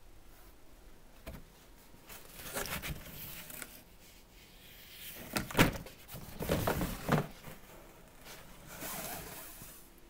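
Cardboard and pleated air filters being handled: patches of scraping and rustling, with a sharp knock about halfway through.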